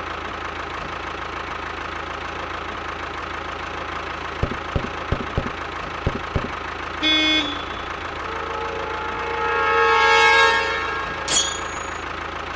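Dubbed tractor engine sound effect running steadily, with a few sharp clicks around the middle, a short horn honk about seven seconds in, and a longer pitched tone that swells up and fades near the end.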